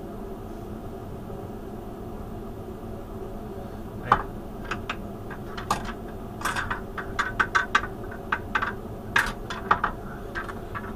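Sharp metallic clicks and clinks from hand tools and hardware on a Tormach CNC mill's Y-axis ball screw assembly, starting about four seconds in and coming in quick irregular runs, over a steady low hum.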